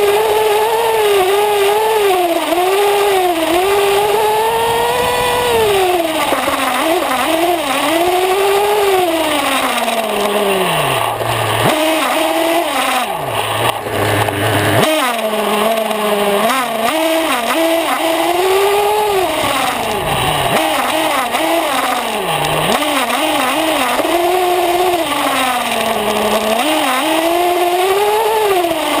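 Nitro two-stroke glow engine (Force .21) of a 1/8-scale Ansmann Virus 3.0 buggy, heard from a camera mounted on the car. It revs up and down continuously as the car is driven, and falls briefly to idle pitch several times.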